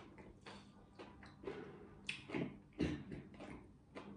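Quiet eating sounds: a metal spoon tapping and scraping on a ceramic plate, with soft chewing, as a series of short scattered clicks and soft noises.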